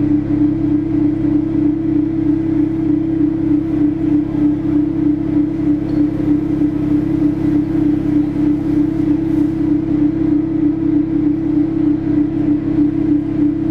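Electronic drone played through the light show's sound system: a loud, steady low hum that throbs evenly several times a second and does not change.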